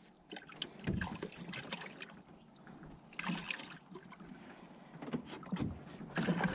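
Scattered light knocks and rustles of handling in a small fishing boat, with water lapping quietly against the hull.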